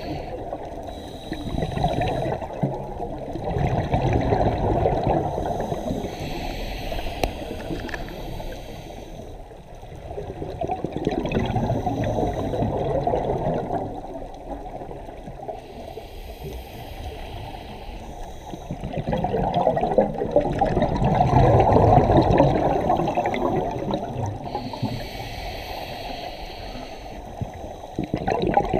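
Scuba diver breathing through a regulator underwater. A short hiss on each inhale is followed by a longer burst of gurgling exhaled bubbles, about three breaths in a slow, even cycle.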